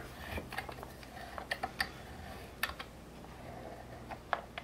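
Small bench vise being cranked tight by its sliding T-handle: a few light, irregular metal clicks and ticks, the sharpest about two and a half seconds in and a pair near the end.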